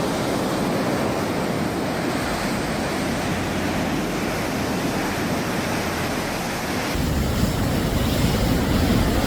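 Rushing floodwater: a steady noisy rush that grows heavier and deeper about seven seconds in.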